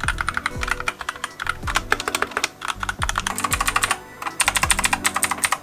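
Fast typing on a Logitech K845 mechanical keyboard with linear red switches: a dense run of keystrokes with a short pause about four seconds in, over background music with a steady beat.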